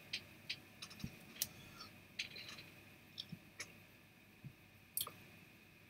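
Quiet room with about a dozen faint, irregular small clicks and ticks scattered over a few seconds.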